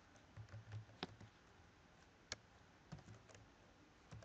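Faint computer keyboard keystrokes, a handful of single key presses spaced roughly a second apart, over a faint low hum.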